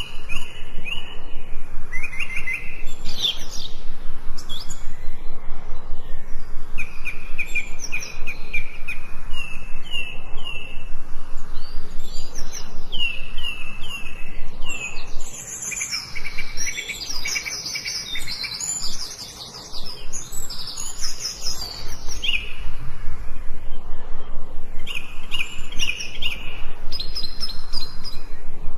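Forest birds singing: several birds giving repeated chirps and quick trilled phrases, one after another, with a brief lull about halfway through.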